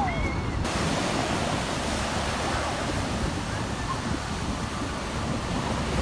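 Ocean surf breaking and washing up the beach, a steady rushing noise mixed with wind on the microphone. A child's short high call comes at the very start.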